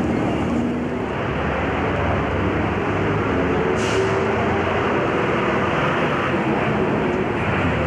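Steady city street noise: an unbroken rumble of traffic with a constant low hum, and a brief hiss about four seconds in.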